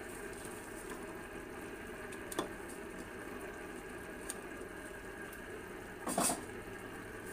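Duck curry bubbling steadily at a boil in a pan, with a couple of brief knocks, the louder one about six seconds in.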